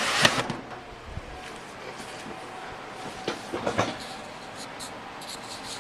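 Containers being handled: a brief scraping rush at the start, then a few light knocks and clicks.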